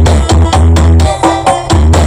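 Electronic dance music with a heavy, pulsing bass line, played very loud through the Tebe Audio sound horeg, a large carnival sound system.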